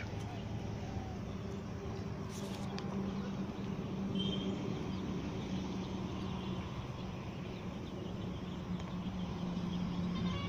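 Poultry calling in a flock over a steady low hum, with one brief high call about four seconds in.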